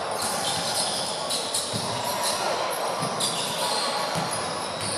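Sound of a basketball game in a large indoor hall: a steady din of the hall with a few faint thumps of the ball bouncing on the court.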